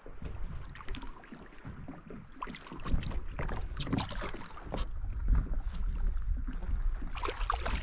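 Water splashing and sloshing beside a kayak as a big hooked northern pike thrashes and swirls at the surface, with scattered knocks and wind rumble on the microphone, heavier from about three seconds in.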